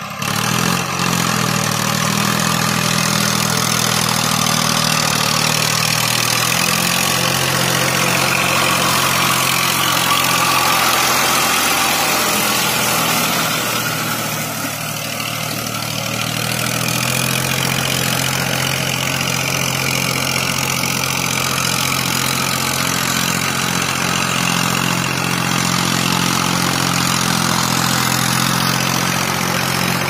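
Farm tractor's diesel engine running steadily as it ploughs through a flooded, muddy paddy field, with its loudness dipping briefly about halfway through.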